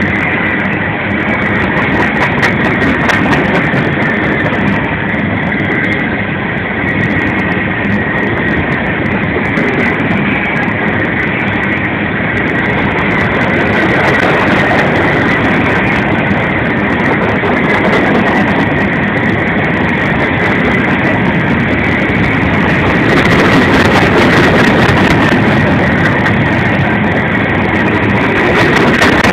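A CSX freight train's empty cars rolling past: a loud, steady rumble and clatter of steel wheels on the rails, with a thin high squeal over it, growing a little louder near the end.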